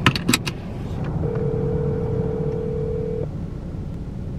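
Phone call going out on speakerphone: a few quick clicks, then the ringback tone sounds for about two seconds and stops, starting again near the end, over a low steady rumble inside the car.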